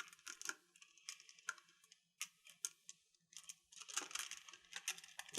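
Crystals tapping and clinking, a run of light, irregular clicks that come in small clusters.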